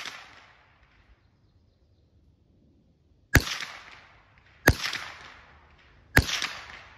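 Smith & Wesson M&P 15-22 rifle firing .22 LR, three single shots about a second and a half apart starting about three and a half seconds in, each followed by a short echo. It opens on the dying echo of a shot fired just before.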